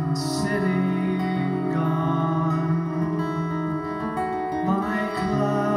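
Amplified acoustic guitar played live, with a man's voice singing over it.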